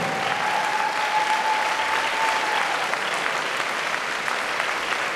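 Audience applauding steadily after a dance performance, with a single held tone in the background that dies away about halfway through.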